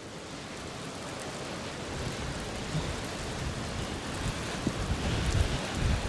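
Severe thunderstorm outflow wind and rain: a steady hiss that grows louder, with gusts buffeting the microphone in low rumbles over the last couple of seconds.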